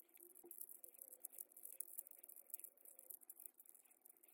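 Faint, rapid, uneven clicking and rattling of a small Rubik's cube's layers being twisted as it is scrambled.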